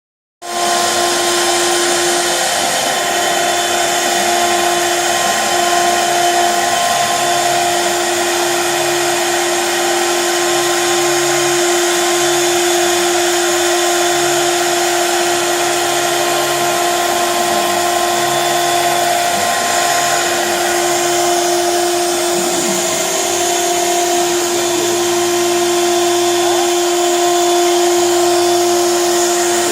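Homemade CNC router running: the spindle motor gives a steady whine, and the stepper motors hum in short stretches that change pitch as the axes move. It starts abruptly just after the beginning.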